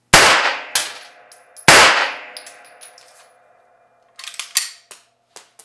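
Two unsuppressed pistol shots from a Beretta, about a second and a half apart. Each rings out and dies away over a second or more in the small workshop room. Light metallic clinks follow, and a run of clicks near the end.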